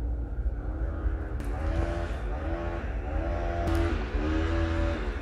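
Hedge trimmer running outside, revving up and down over and over so its pitch keeps rising and falling, over a steady low rumble.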